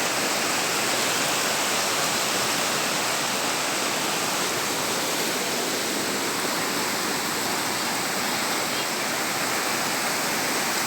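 Floodwater of a swollen, storm-fed river rushing steadily.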